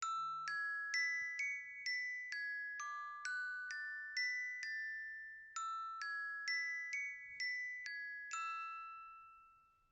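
Countdown timer's alarm going off at zero: a chiming, glockenspiel-like melody of single bell notes, about two a second, with a short pause halfway through. The last note rings out and fades away.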